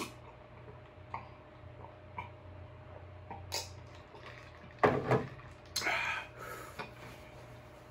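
A man drinking ice water from a glass jar, with faint swallowing clicks while he gulps. About five seconds in, as he finishes, come louder mouth and breath sounds: a short low sound, then a breathy rush.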